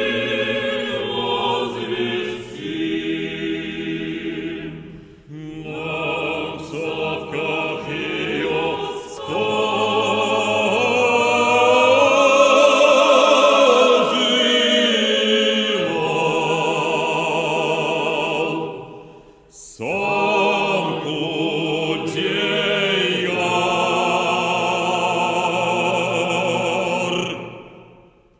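Bass profundo singing slow, sustained phrases with a wide vibrato, joined by choir voices. The singing breaks briefly about five and nineteen seconds in, and the last note fades away near the end.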